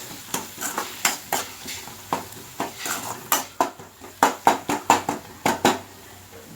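Metal spoon stirring spices into fried onion and tomato in a cooking pan, knocking and scraping against the pan in a quick, irregular run of clinks that comes thickest past the middle.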